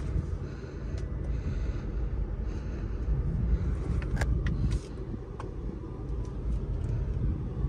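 Mercedes-AMG C63's twin-turbo V8 idling, heard as a low rumble from inside the cabin. There are a few light clicks about four seconds in, and the rumble drops a little in level just before the five-second mark.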